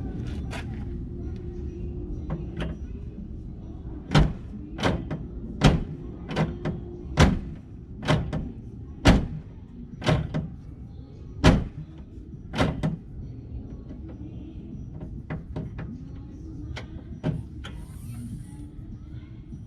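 A run of sharp metal knocks and bangs, about a dozen in nine seconds, over a steady low hum. They fit a car hood being pushed and dropped down onto a newly fitted hood latch to test whether it catches.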